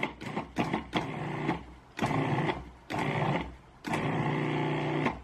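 A blender motor run in pulses mixing the dry ingredients: several short bursts, then three longer runs of about a second each.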